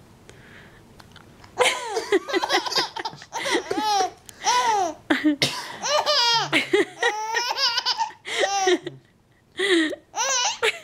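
Baby girl laughing hard in repeated bursts of high-pitched, squealing belly laughs, starting about a second and a half in, with a short pause near the end before she laughs again.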